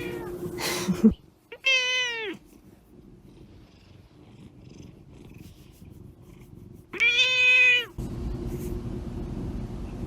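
A cat meowing twice, each meow under a second long with a pitch that bends up and then falls, the two about five seconds apart.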